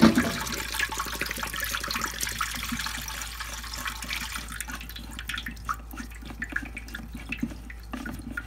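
Diesel fuel trickling out of a removed Duramax fuel filter canister into a drain pan. The trickle fades over the first few seconds, then a tool clicks and scrapes against the filter's plastic water-in-fuel sensor.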